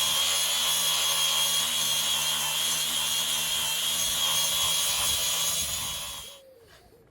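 Angle grinder fitted with a 125 mm sanding disc, running steadily with a high whine as it strips old paint. It cuts off and winds down about six seconds in.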